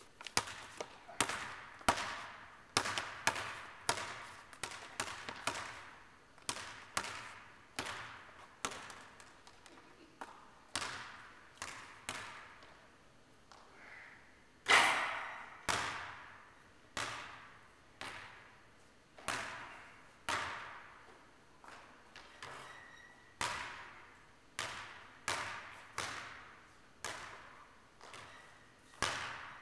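A basketball bouncing again and again on a hardwood-style gym floor, about once a second, each bounce echoing around a large gymnasium. One harder impact, louder than the rest, comes about halfway through.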